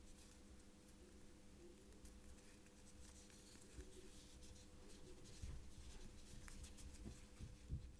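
Near silence with faint scratching and light taps from handling the polyester crochet yarn and hook while the yarn end is tucked in at the back, over a steady faint hum.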